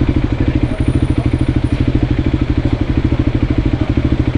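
Voge 300 Rally's single-cylinder engine running steadily at low revs, with an even, regular pulse.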